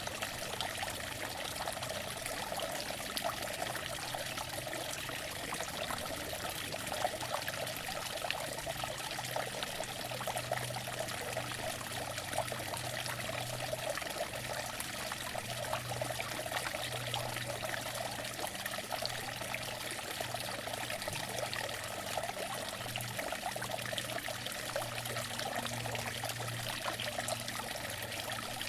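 Outdoor water fountain running: water pouring and splashing steadily, with a faint low hum underneath that comes and goes.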